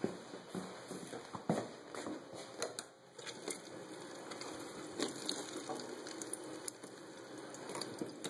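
Cloth rustling and handling clicks, then from about three seconds in a kitchen faucet running a thin stream of water into a stainless steel sink while a washcloth is wetted.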